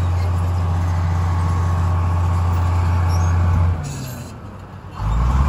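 Crawler bulldozer's diesel engine running under load as it pushes dirt off a bank with its blade. About three and a half seconds in the engine note drops away sharply, then it revs back up near the end.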